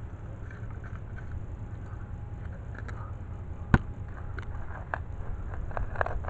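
Folding shovel blade digging into lawn turf and soil: crunching and scraping, with one sharp click about a second before the middle and a run of smaller clicks and scrapes near the end, over a steady low rumble.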